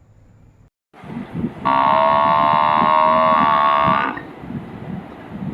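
A loud, steady buzzer tone, held for about two and a half seconds, over a lower, rougher sound.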